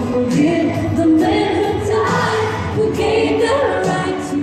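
Large children's choir singing a pop-style song with a female lead singer over an amplified backing track.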